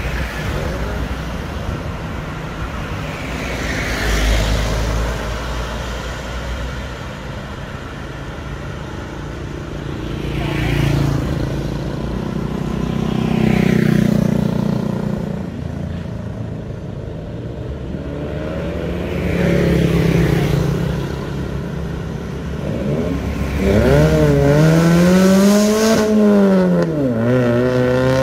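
Road traffic going by: a box truck passes with a deep rumble at the start, then motorbikes and other vehicles swell and fade past several times. Near the end a car engine accelerates hard, its note climbing, dropping at a gear change and climbing again.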